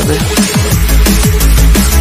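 Electronic background music with a fast drum-and-bass beat and repeated falling bass notes; a deep bass grows strong about half a second in.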